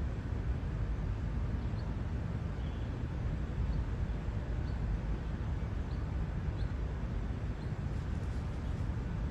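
Steady low outdoor rumble from street traffic and wind, with faint short high chirps every second or so. A brief faint rustle near the end as the wild turkey shakes its wings in the dust.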